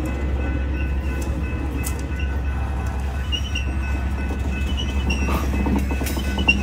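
Freight cars loaded with logs rolling slowly past on the rails: a steady low rumble with occasional clicks of the wheels and a few faint, brief high squeaks.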